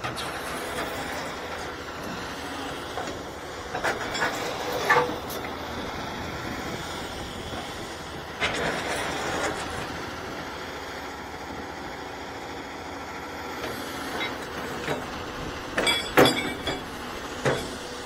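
Caterpillar excavator's diesel engine running steadily, with bursts of sharp clanks and scrapes from the bucket working the ground, loudest near the end.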